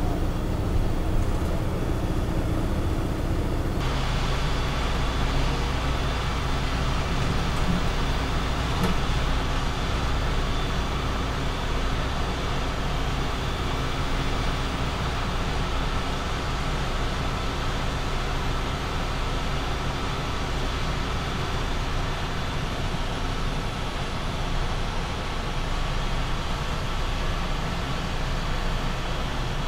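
A sleeper coach driving on a highway, heard from inside the front cabin: steady engine drone mixed with tyre and road noise, becoming a little louder and hissier about four seconds in.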